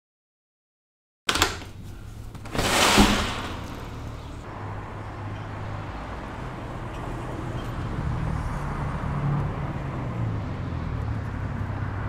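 About a second of silence, then street traffic: a car passes about three seconds in, the loudest moment, and a steady low rumble of traffic and street noise goes on after it.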